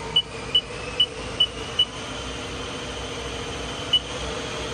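Haas SL-30T CNC lathe spindle running and being sped up toward about 3,500 RPM, a steady hum with a faint whine that rises slightly in pitch. Short high beeps from the Haas control come about twice a second for the first two seconds, and once more near the end, as the speed is stepped up.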